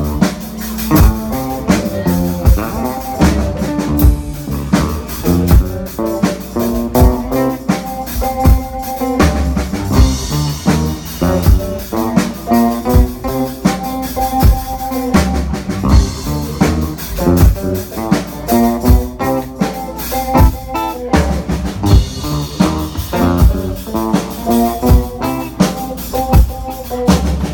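A small rock band playing a song: drum kit keeping a steady beat under guitar and keyboard.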